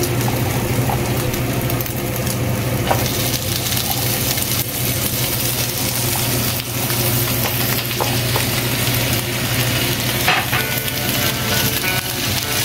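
Ground pork sizzling in a non-stick frying pan as chopped napa cabbage is dropped in by hand and stirred with a wooden spatula, with small scrapes and clicks over a steady low hum.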